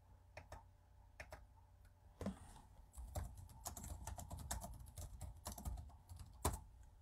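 Typing on a computer keyboard. A few scattered keystrokes are followed by a quick run of typing from about three seconds in, with one louder key strike near the end.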